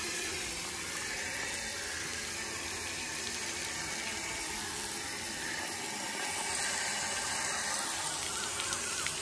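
Water jetting out of a tractor's rear tyre through its valve in a steady spray. Water has got into the tubeless tyre and is being drained out.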